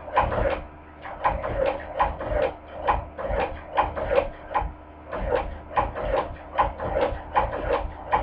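Hand-crank cobbler sewing machine stitching, its needle mechanism clacking in a steady rhythm of about two and a half strokes a second as it is cranked through thick pleather.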